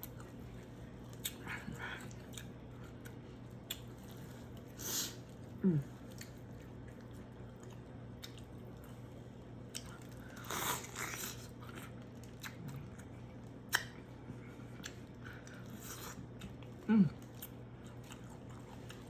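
Close-miked eating sounds of a person chewing corn on the cob: wet chewing and lip smacks with scattered sharp clicks and a few short louder bursts.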